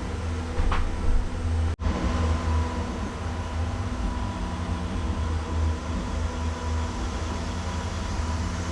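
A workshop machine running steadily, a strong low hum. A brief cut comes about two seconds in, after which a thin steady whine joins the hum.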